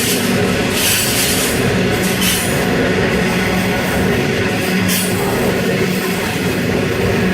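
Empty coal train wagons rolling past on the rails: a loud, steady rumble of wheels on track with a low hum and a few short hissing surges of wheel noise.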